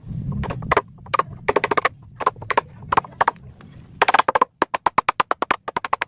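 Sharp knocks of a hammer or mallet on wood, as when tapping a dowel into a glued board. Single strikes and short clusters come first, then a fast run of about eight light taps a second that fades away near the end.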